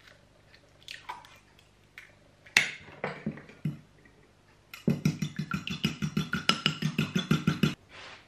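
A hen's egg is cracked with a sharp knock on the rim of a small ceramic bowl, then a metal fork beats it quickly against the bowl for about three seconds, about seven or eight clinks a second.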